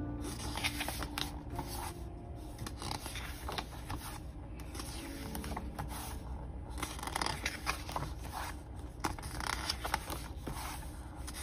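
Glossy pages of a K-pop album photobook being turned by hand: paper swishing and rustling through several page turns, with hands sliding over the paper.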